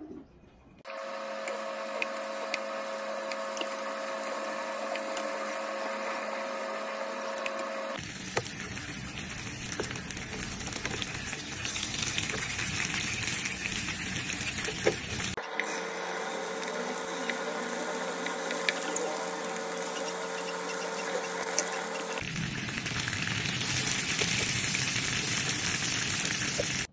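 Cooking noise, plausibly food sizzling in a pan, as a steady hiss with fine crackles, heard in four abruptly cut clips. In the first and third clips a steady motor hum runs under it.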